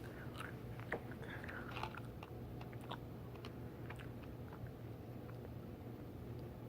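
Faint mouth sounds of someone chewing a jelly bean: scattered small wet clicks that thin out after about four and a half seconds, over a low steady hum.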